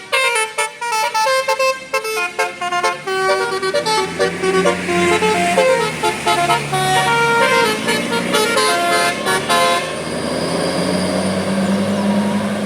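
Indonesian bus telolet horn playing a quick melody of stepped, changing notes. About ten seconds in the tune stops, leaving a steady low hum and noise.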